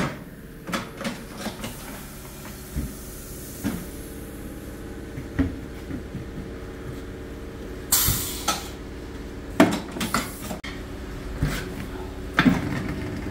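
Metal tools clinking and knocking during a tyre puncture repair, with two short hisses of air about eight and ten seconds in, over a steady low hum.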